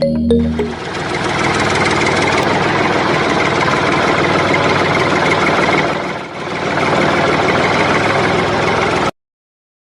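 A motor running steadily, with a brief dip about six seconds in; it cuts off suddenly near the end.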